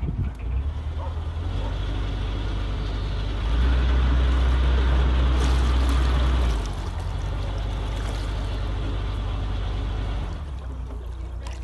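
Narrowboat's diesel engine running with a steady low beat. It is opened up for about three seconds from three and a half seconds in, then eased back, and throttled down again near the end as the boat lines up for the narrow bridge hole.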